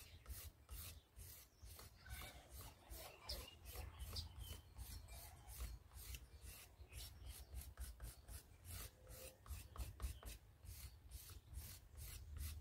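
Metal rib scraping dried slip off a textured clay bowl in quick, even strokes, about four a second, faint. The slip now comes off as dry shavings instead of smearing, the sign that it has dried enough for mishima.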